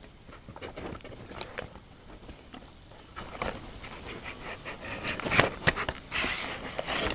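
Handling noises: a few light clicks and taps, then a longer rustle about six seconds in.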